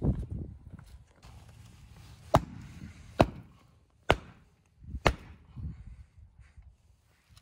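Chopping on a wooden cutting board: four sharp strikes a little under a second apart, starting a couple of seconds in.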